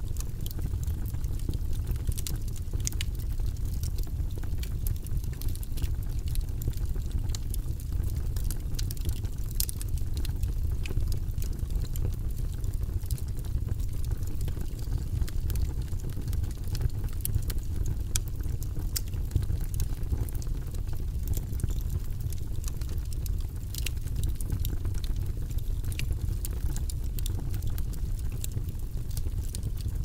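Wood logs burning in a fireplace: a steady low rumble of flames with frequent sharp crackles and pops scattered throughout.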